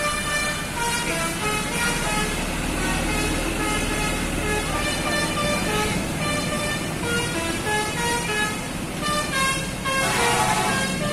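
Telolet multi-tone air horn on a Garuda Mas intercity bus playing a tune of held notes that step from pitch to pitch, loud, over the bus's steady rumble. A burst of rushing noise comes about ten seconds in.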